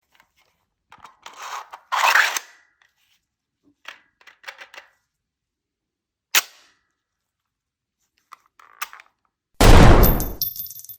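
Clicks and short rattles of a 3D-printed toy Desert Eagle pistol being worked, then a single loud gunshot-like bang near the end that fades away with a high ringing.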